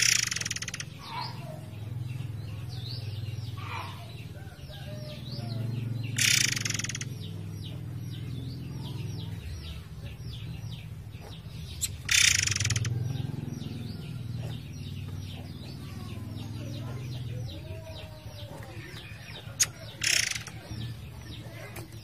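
Murai air songbird singing a fast, continuous run of quick chirping notes, broken by four loud harsh bursts of about a second each: near the start, about six seconds in, about twelve seconds in, and near the end.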